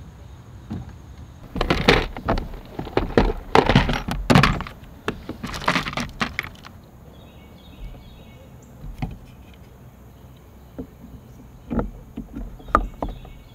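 A run of hard knocks, thumps and clatter from a plastic fishing kayak and its gear being handled, dense for several seconds in the first half. Later only a few light clicks, with insects chirping faintly.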